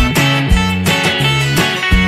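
Background music led by strummed and plucked guitar, with notes changing about twice a second.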